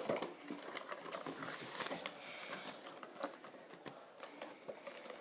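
A child handling and opening a toy's cardboard box packaging: rustling and crinkling with scattered sharp clicks.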